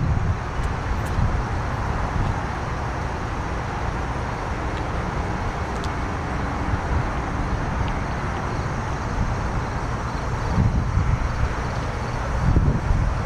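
1964 Chevrolet Impala SS's 327 cubic-inch small-block V8 idling, a steady low exhaust note heard at the rear of the car, swelling briefly twice near the end.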